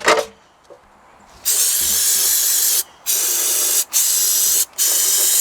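A short knock right at the start, then a pressurised spray nozzle hissing in four bursts, the first over a second long and the rest about a second each with brief breaks, as sludge is sprayed out of an engine oil pan.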